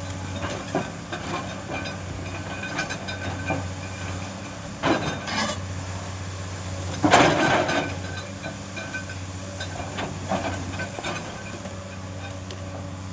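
Heavy construction machine's diesel engine running steadily, with irregular metal clanks and knocks over it, the loudest about seven seconds in.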